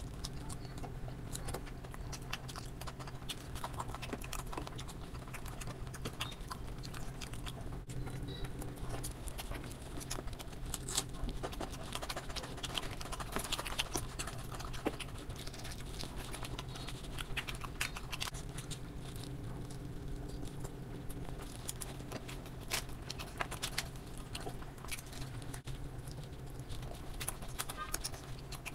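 Close-miked eating sounds: a person chewing with lip smacks and fingers mixing rice and crushing crisp papad on a steel plate, making a steady stream of small wet clicks and crackles over a low steady hum.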